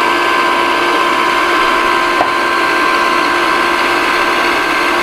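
Hamilton Beach stand mixer running steadily at speed, its electric motor humming with a steady whine while the whisk attachment beats cookie batter in the steel bowl. A small click sounds once, a little after two seconds in.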